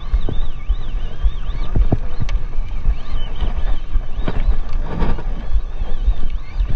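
Wind buffeting the microphone on a small open boat at sea, with a steady wash of sea noise. A thin, high whine wavers up and down about twice a second and comes and goes, with a few light knocks around it.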